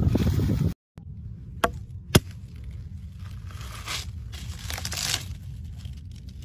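Outdoor noise with wind on the microphone cuts off under a second in. Then a ripe watermelon is broken open by hand: two sharp cracks of the rind about half a second apart, then wet tearing sounds as the flesh is pulled apart.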